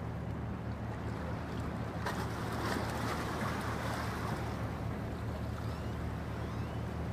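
Offshore supply vessel's diesel engines running with a steady low drone as the ship moves past. A swell of rushing hiss rises about two seconds in and fades out a couple of seconds later.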